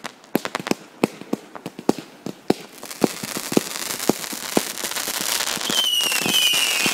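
Fireworks going off in quick succession: sharp pops and bangs several times a second, building into a dense crackling, with shrill whistles gliding slightly downward in pitch coming in near the end.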